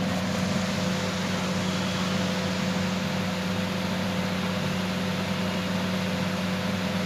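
Steady low hum with a constant hiss over it: background noise of a running machine.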